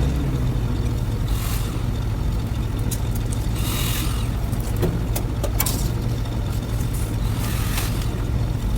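A machine's engine running steadily with a low drone, with a few brief swells of hissing and some sharp clicks on top.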